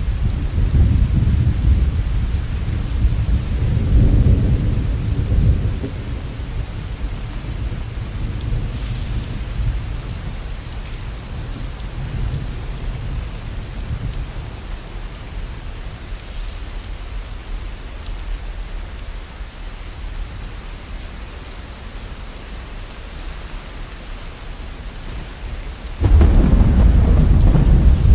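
Heavy rain with rolling thunder. A loud low rumble in the first few seconds slowly dies away under the steady rain, then a new loud rumble starts abruptly near the end.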